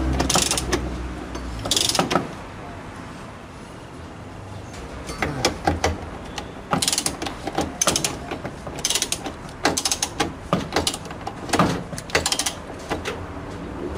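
Socket ratchet wrench clicking as bolts on a washing machine's drive assembly are tightened: a couple of single clicks, then runs of quick clicking from about five seconds in.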